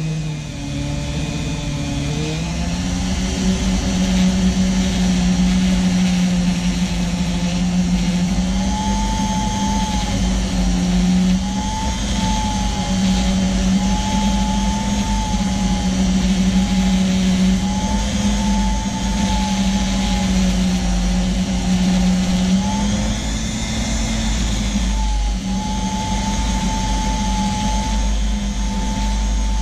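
Flexible-shaft rotary tool running steadily with a sanding drum held against a revolver grip, sanding down the hardened epoxy filler in a chipped spot. It gives a steady whine whose pitch dips and rises slightly a few times.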